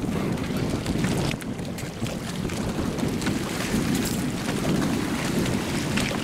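Steady wind buffeting the microphone over open sea, with water moving around the boat beneath it.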